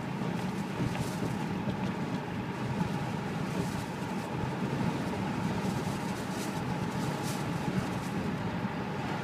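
Steady road and engine noise heard inside the cabin of a car driving down a street.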